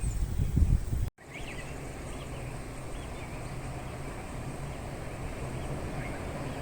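Outdoor ambience: wind buffeting the microphone with a few bird chirps, broken off abruptly about a second in. It is followed by steady background noise with a low hum and scattered bird chirps.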